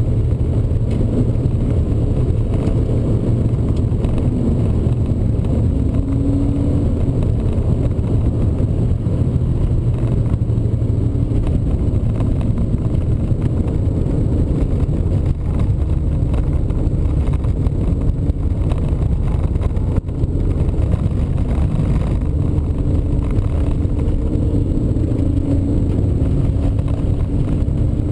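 BMW E36 320i's straight-six engine running under track driving, heard from inside the cabin over dense road noise. Near the end the engine note climbs steadily in pitch as the car accelerates.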